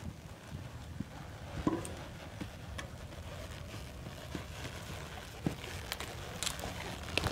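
A saddled paint horse walking on bare, soft dirt, its hooves landing in scattered, soft thuds.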